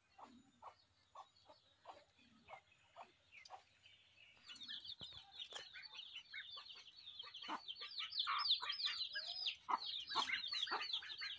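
Chickens calling: soft clucks at an even pace, then from about four seconds in a dense run of high, short peeping calls that grows louder toward the end.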